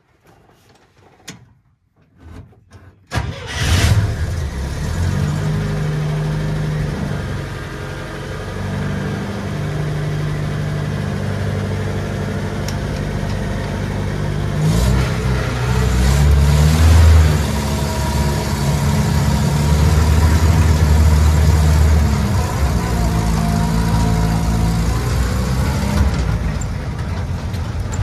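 1963 International Harvester Scout 80's four-cylinder engine starting from cold: a few clicks and short bursts, then it catches about three seconds in and runs. The engine speed picks up a couple of times later on, most strongly around the middle and just after.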